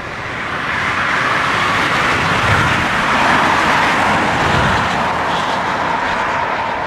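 Jet airliner engines running at taxi power: a steady rushing noise that grows louder over the first second, holds, then eases slightly near the end.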